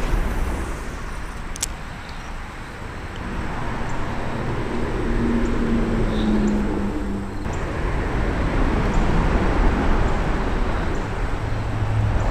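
Steady rumble of road traffic crossing a highway bridge overhead, with one vehicle's hum standing out for a couple of seconds midway.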